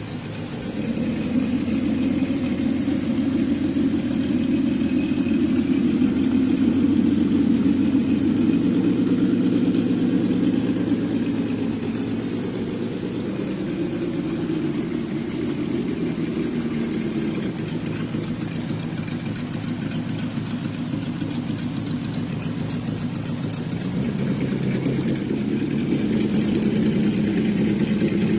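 Simulated engine sound from an ESS-Dual sound module on a Traxxas TRX-4 RC crawler, playing through its speaker: a low engine note idling and revving up and down, rising in the first few seconds, easing off in the middle and rising again near the end. A steady high-pitched whine runs underneath.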